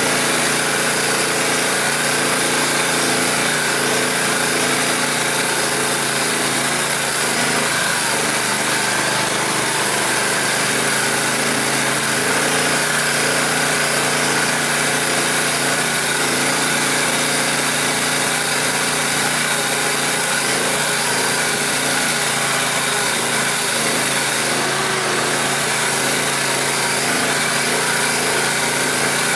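All-terrain vehicle's engine running steadily as it drives along a snowy track, heard from inside the cab.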